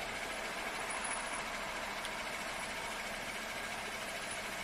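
Steady hum of an idling vehicle engine with road noise, unchanging throughout.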